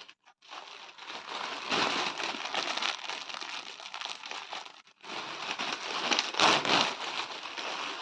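Plastic packaging crinkling and rustling as it is handled, in two stretches with a brief pause about five seconds in.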